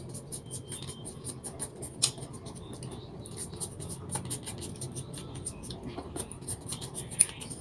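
Plastic knife scraping spread out of a small single-serve packet and spreading it on toast: a quick, irregular run of small scratchy clicks with light crinkling of the packet.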